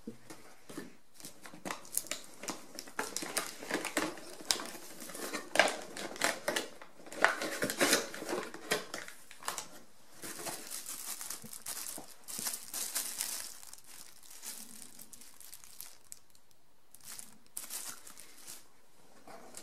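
Clear plastic packaging tray and tissue paper crinkling and rustling as they are handled and lifted out of a cardboard box. The crackling comes in irregular bursts, busiest in the first half, turns to a steadier rustle for a few seconds, then dies down to occasional rustles.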